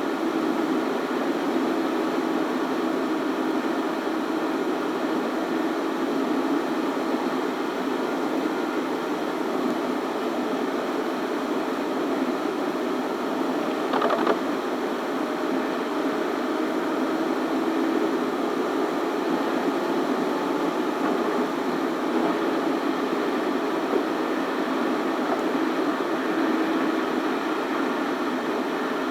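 Steady road and engine noise from a car driving, with a single short knock about halfway through.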